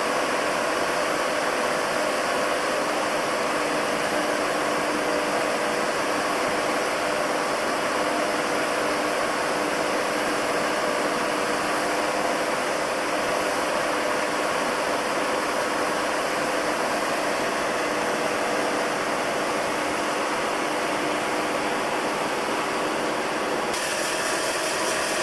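Dry-mix gunite rig running: a steady, loud rush of compressed air and mortar through the REED SOVA gunite machine's hose and nozzle, with the hum of the 375 cfm air compressor that powers it.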